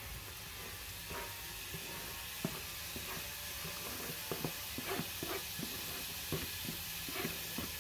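Chopped garlic sizzling in hot oil in a saucepan while chopped onion is scraped in from a plastic container with a wooden spoon, giving a steady sizzle with many short, irregular scrapes and taps.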